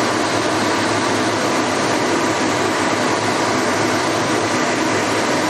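Kitchen extractor fan running with a steady, unchanging whoosh.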